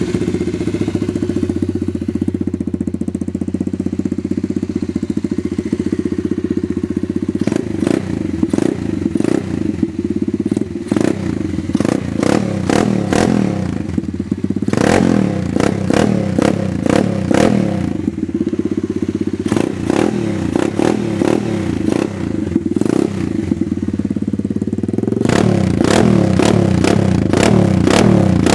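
Upgraded pit bike's single-cylinder engine running with no silencer: it idles steadily, then from about seven seconds in it is blipped repeatedly, each rev bringing sharp pops and crackles from the open exhaust, thickest and loudest near the end.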